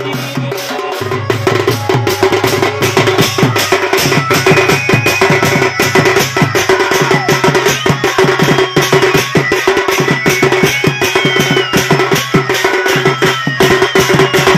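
Large double-headed barrel drum (dhol) beaten with a stick in a fast, driving rhythm, over instruments holding sustained notes that change pitch a few times, with a higher melody gliding above.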